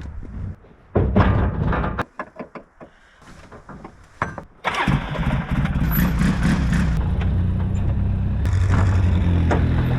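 Knocks and clatter, then a vehicle engine starts about five seconds in and keeps running steadily.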